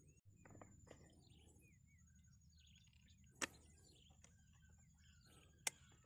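Faint outdoor birdsong: short chirps and whistles from several birds. Two sharp clicks stand out, one about halfway through and one near the end.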